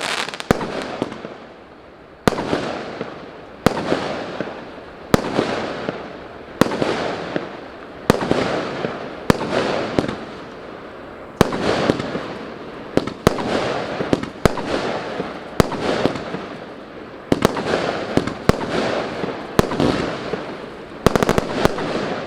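A 20mm 49-shot battery of shot tube fireworks firing shot after shot, roughly one every second or so, sometimes two in quick succession. Each sharp report is followed by a hissing, crackling tail that fades. A quick flurry of several shots comes near the end.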